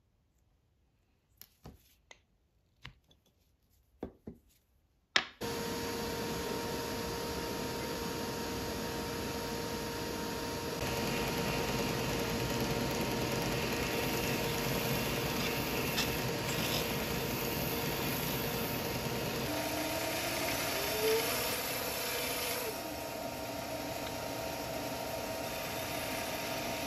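A few faint clicks and taps of small parts being handled, then a power tool starts suddenly about five seconds in. A disc sander runs steadily, growing louder from about eleven seconds in as the end of a segmented end-grain wood blank with a glued-in brass tube is squared on the disc. Near the end a band saw is running as a small blank is cut in a jig.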